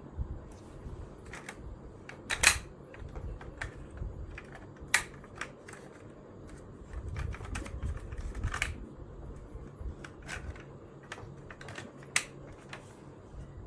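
Irregular sharp clicks and taps, the loudest about two and a half, five and twelve seconds in, over a low rumble.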